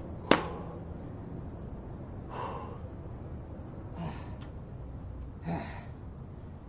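A man breathing hard, winded from push-ups and squats: three heavy breaths a second and a half or so apart. Just after the start there is a single sharp smack, the loudest sound.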